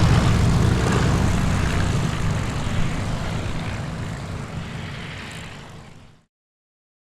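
Piston engine and propeller of a First World War Fokker replica fighter in flight, running steadily and fading as it moves away. It cuts off abruptly about six seconds in.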